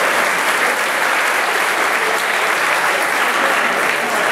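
Audience applauding steadily: dense clapping.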